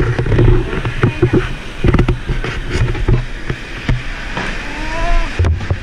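Repeated low thumps and knocks from a handheld camera being carried along, with a faint voice in the background about four and a half seconds in.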